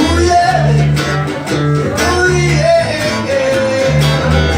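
Instrumental break in a song: a guitar plays a melodic line over steady bass notes.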